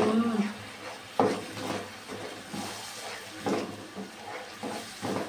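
Plastic spatula scraping round a nonstick wok as thick sauce is stirred, in short strokes about twice a second, over the low sizzle of the sauce cooking.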